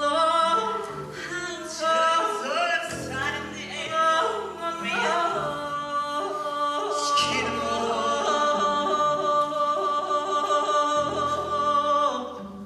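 Music with a solo singing voice in gliding, ornamented phrases, then one long held note from about halfway that stops shortly before the end.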